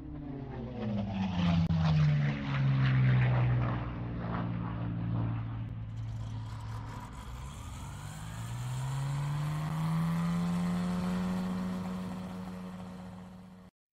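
Light airplane's piston engine running. Its note drops as it passes over the first few seconds, then holds steady, and climbs again about eight seconds in as the power comes up. The sound cuts off abruptly near the end.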